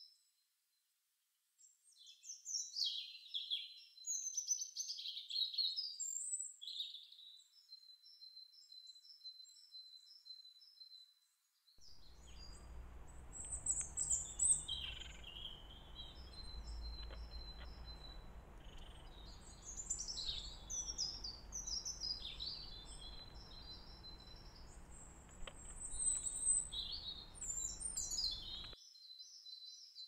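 Small songbirds singing: varied high chirping and warbling phrases with runs of quick repeated notes. A low rumble of background noise joins them about twelve seconds in and cuts off just before the end.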